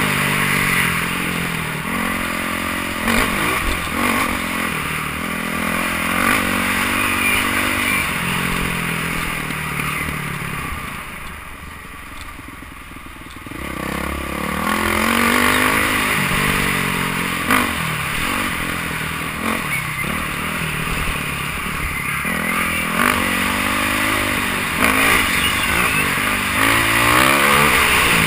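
Dirt bike engine heard from the rider's helmet camera, revving up and falling back again and again as the throttle is worked. About eleven seconds in it eases off to a quieter lull, then revs up again a few seconds later.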